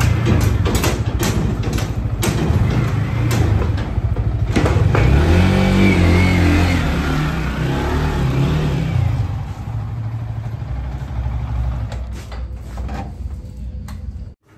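Motorcycle engine running at low speed, its revs rising and falling about halfway through, with a few sharp clicks and knocks in the first seconds; the engine sound fades over the last few seconds.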